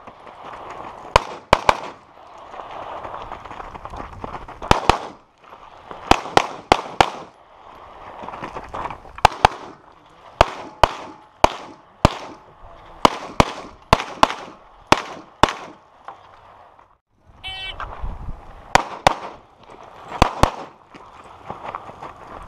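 Handgun fire on an outdoor range: rapid pistol shots, mostly in fast pairs and short strings, with brief pauses between groups as the shooter moves between positions.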